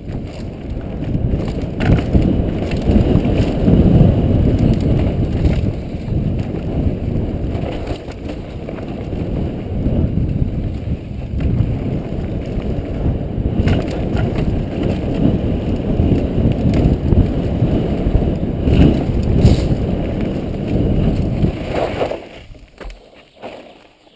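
Helmet-camera sound of a downhill mountain bike run: steady wind buffeting on the microphone and tyres rumbling over the dirt trail, with occasional sharp clatters from the bike. About two seconds before the end the rumble falls away, leaving a few separate knocks.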